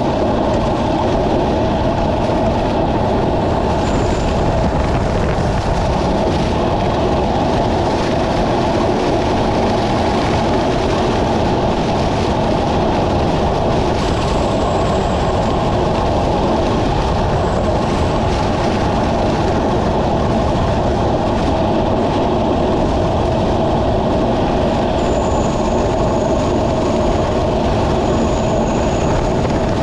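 Steady rushing and rumbling noise of wind and tyres on a wet road, heard from a road bicycle riding fast in the rain. A faint high whine comes and goes a few times.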